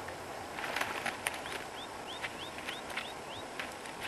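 Rustling and light knocks close by as a freshly landed red horse sucker and the rod are handled in the grass, over the steady rush of the river. A bird calls a quick run of about seven short chirps in the middle.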